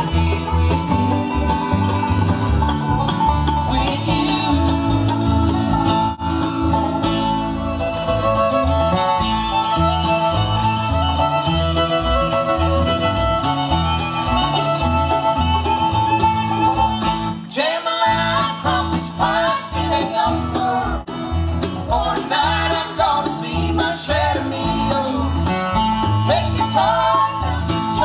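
Live bluegrass band playing: five-string banjo, fiddle, upright bass and acoustic guitar over a steady bass beat.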